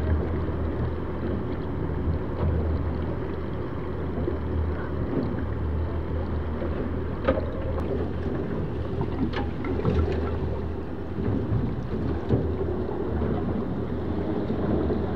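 Rush of water and spray off an AC40 foiling racing yacht, with wind on the microphone and a steady low rumble. A few faint sharp clicks come about halfway through.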